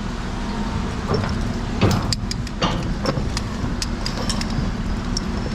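A steady low engine drone from heavy machinery running, with scattered sharp clicks and clinks of metal bolts and hardware being handled.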